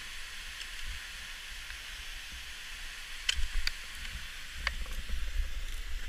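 Steady hiss and low rumble on a helmet camera's microphone during ice climbing, with a few sharp clicks of the climber's metal ice-climbing gear striking the frozen waterfall. Three of the clicks fall between about three and five seconds in.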